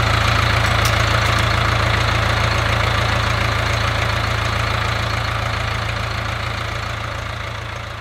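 XCMG WZ30-25 backhoe loader's diesel engine idling steadily, gradually fading out over the last few seconds.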